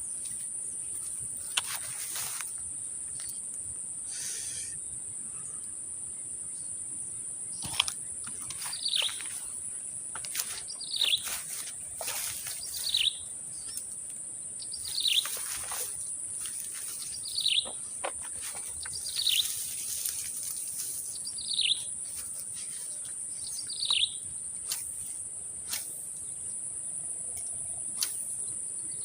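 Steady high-pitched insect drone, with a bird repeating a short falling call about every two seconds through the middle of the stretch. A few sharp clicks stand out now and then.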